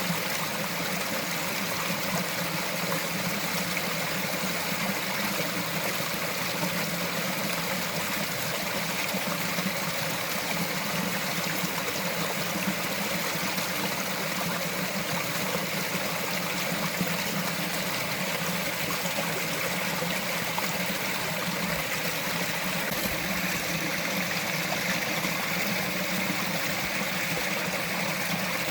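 Small mountain stream running steadily over rocks, a continuous babble of trickling water.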